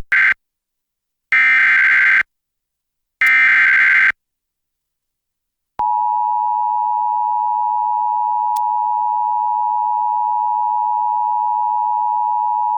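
Emergency Alert System activation: the end of one and then two more roughly one-second bursts of the digital SAME header, a harsh buzzing screech, about a second apart. About six seconds in, the EAS two-tone attention signal starts and holds steadily, announcing a severe thunderstorm warning.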